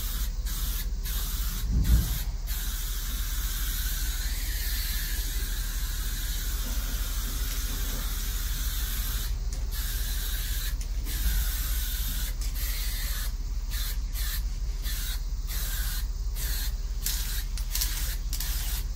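An aerosol can of automotive spray paint hissing as it sprays, in long runs broken by many brief pauses that come more often in the second half. There is a low thump about two seconds in.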